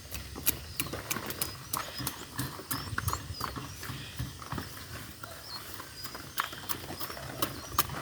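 Irregular knocks and clicks, several a second, with faint high chirps among them.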